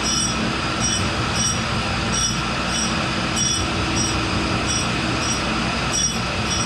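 Tool and cutter grinder running, its wheel grinding a hardened-steel chuck key: a steady mechanical noise with a high grinding hiss that swells again and again in a regular rhythm, a little more than once a second.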